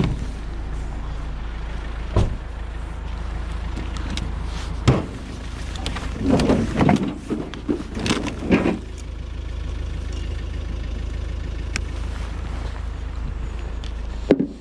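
Van engine idling with a steady low rumble. Sharp knocks come at about 2 and 5 seconds in, with a cluster of clattering handling noises in the middle.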